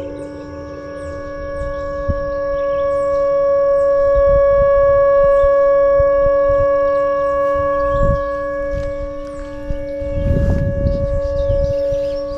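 Dam-release warning siren sounding a steady chord of several held tones, swelling to its loudest in the middle and easing toward the end: the warning that water is being let out and the river is about to rise. Faint bird chirps, and a few low thumps about eight and ten seconds in.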